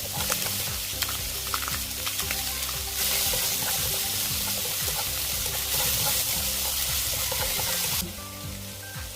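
Scallops and shrimp sizzling in a frying pan, with clicks of a spatula stirring them; the sizzle jumps louder about three seconds in and drops back near the end.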